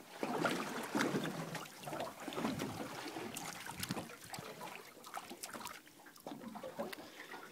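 Sea water lapping and trickling against a boat's hull, with small irregular splashes.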